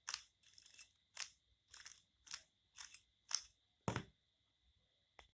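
Rubik's Cube layers being turned by hand, a quick series of about eight plastic clacks roughly two a second, as an F2L algorithm is executed to insert a corner-edge pair into its slot. A last faint click comes near the end.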